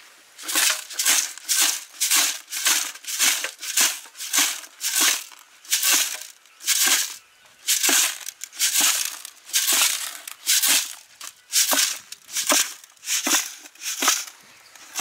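Whole snakehead murrel fish and coarse salt sliding and scraping inside a bucket as it is shaken and swirled by hand, a rhythmic swish about once or twice a second. This is the salt being worked through the fish to scour off the slime before washing.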